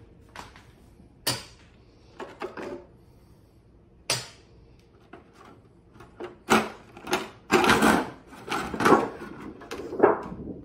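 Inner cover plate being worked loose and lifted out of a battery's metal case: two sharp clicks in the first few seconds, then a run of clanks and scrapes, loudest near the end.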